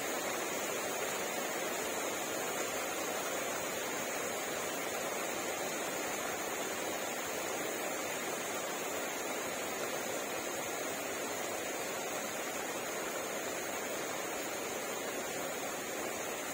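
Steady rain falling on garden plants and surfaces, an even, unbroken hiss.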